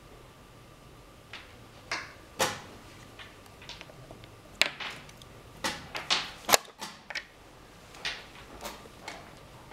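Wooden chess pieces being set down on a roll-up board on a table, with a chess clock button being pressed: a scatter of sharp wooden knocks and clicks, busiest in the middle, the loudest about six and a half seconds in.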